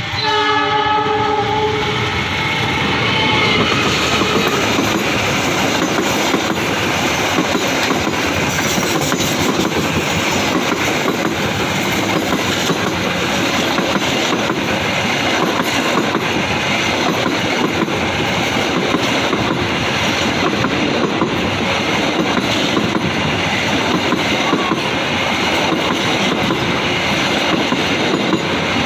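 KAI passenger train sounding its horn for about the first three seconds, then passing close by with a steady rumble and clatter of coach wheels on the rails.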